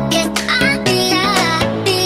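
Background electronic music with sustained chords and a wavering melody line.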